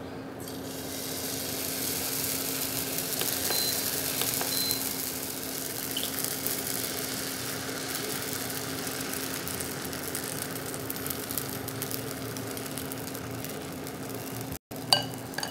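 Dosa batter sizzling on a hot oiled nonstick tawa as it is ladled on and spread: a steady hiss that builds about half a second in and holds. A steady low hum runs underneath.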